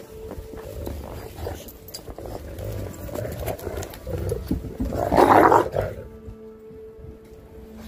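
Dogs growling and scuffling during rough play, with one loud growl about five seconds in that lasts under a second.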